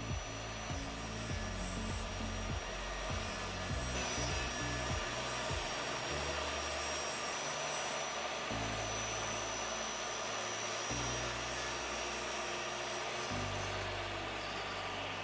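Table saw running with a steady high whine while it rips a PVC deck fascia board lengthwise. Near the end the motor winds down, its whine falling in pitch.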